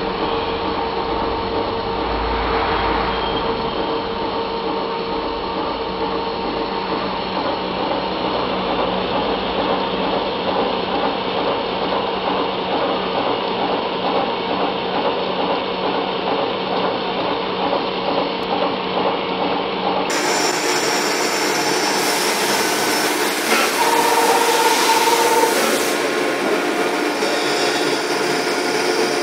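A machine tool cuts a coarse helical worm thread into a steel shaft: a steady mechanical hum with several held tones. About two-thirds of the way through, the sound switches abruptly to a brighter, noisier cutting sound from a CNC lathe making a threading pass.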